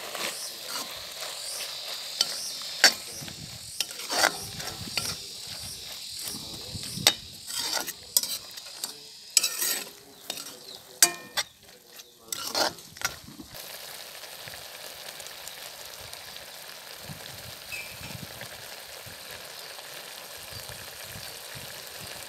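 Beef tripe frying in a metal wok, stirred with a metal ladle that scrapes and clinks against the pan many times over the first thirteen seconds or so. After that only a steady sizzle remains.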